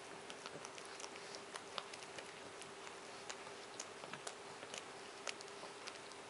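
Japanese Chin gnawing on a bone: irregular sharp clicks of teeth on the bone, several a second, over a faint steady hum.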